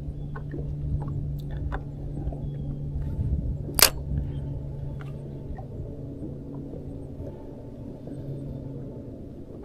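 Steady low electrical hum of a boat's electric trolling motor, which eases off about seven seconds in, over a low rumble of wind and water. A single sharp click about four seconds in is the loudest sound, with a few faint ticks of handled fishing tackle.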